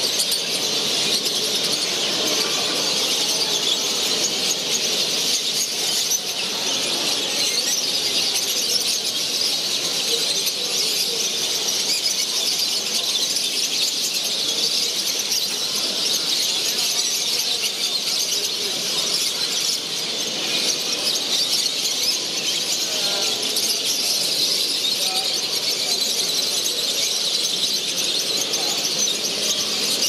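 Dense chorus of many caged show finches singing and chirping at once: a continuous high twittering that keeps up without a break.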